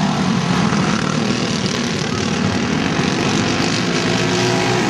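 Racing go-karts' single-cylinder four-stroke Briggs & Stratton Animal engines running hard at race speed as two karts pass close by, a loud, steady engine noise.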